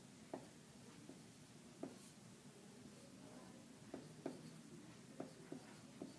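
Dry-erase marker writing on a whiteboard: faint, scattered short taps and strokes as numbers are written.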